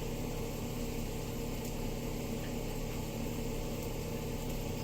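A motor or fan humming steadily, a constant drone with no change.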